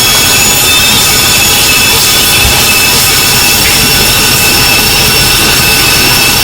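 Shower water running with a steady, high-pitched whistle from the water heater held over the rush of the spray.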